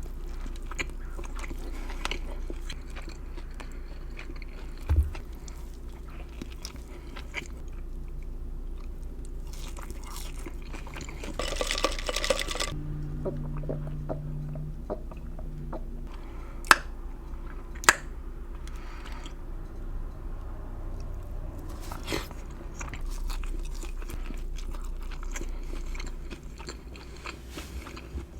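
Close-miked chewing and biting of salmon sliders, with soft crunches and mouth clicks throughout and two sharp clicks just past the middle. A low steady hum runs for a few seconds around the middle.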